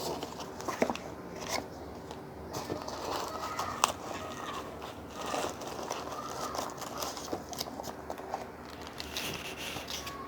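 Cardboard box being opened and its contents handled: crinkling and rustling of wrappers and packing, with scattered light clicks and knocks of cardboard.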